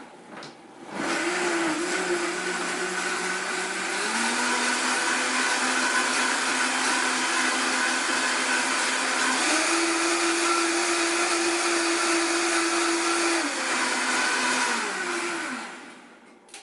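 Vitamix blender running, blending a green smoothie of water, frozen berries, spinach and ginger. The motor starts about a second in, steps up in speed twice, then drops back and winds down to a stop near the end.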